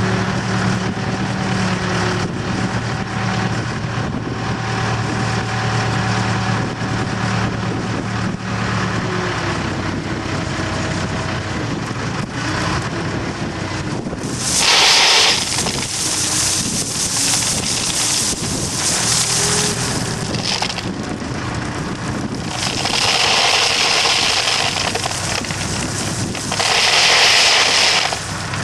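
Heavy machinery engine running steadily, overlaid in the second half by several loud bouts of rushing noise.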